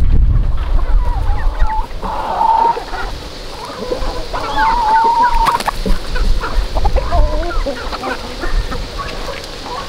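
Free-range chickens clucking and calling, a string of short drawn-out calls with low rumble underneath, strongest at the start.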